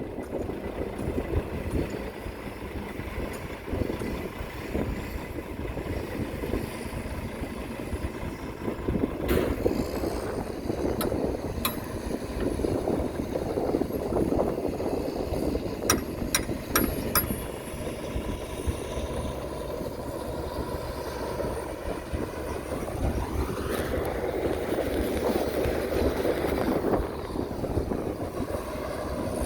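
Heavy earthmoving machinery running steadily, with a rough rumble and a few sharp clicks or clanks. The engine note swells up and falls back again in the last few seconds.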